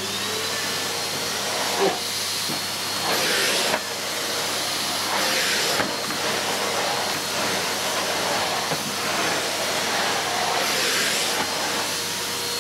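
Numatic James bagged cylinder vacuum cleaner motor spinning up over the first half-second and then running steadily with a high whine, on its reduced-suction setting. Its floor head swishes in repeated strokes every second or two as it is pushed back and forth across a loop-pile rug, which makes it hard to move.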